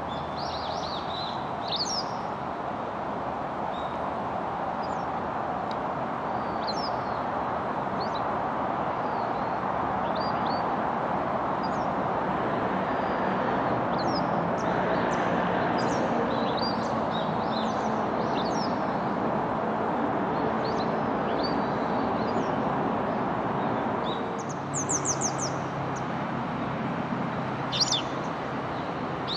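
Small wild birds giving short, high chirping calls now and then, with a quick run of repeated notes twice near the end, over a steady rushing background noise.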